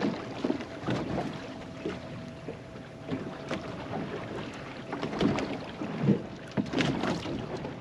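Water slapping and lapping irregularly against the hull of a small drifting boat rocking on the swell, with wind on the microphone.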